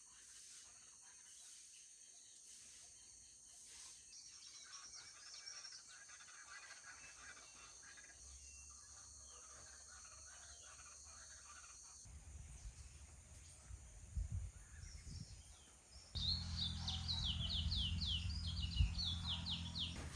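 Small birds chirping: faint at first, then a louder run of quick, falling chirps in the last few seconds, over a low steady rumble.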